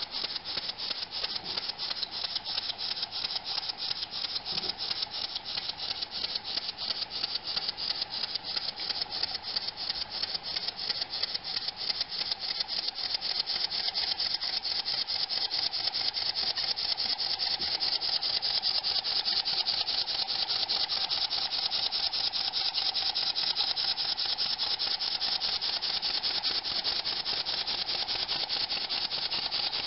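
Model over-crank vertical steam engine running on compressed air at 5 PSI, its cylinder exhausting in rapid, even puffs. The beat grows louder from about halfway through and then holds steady.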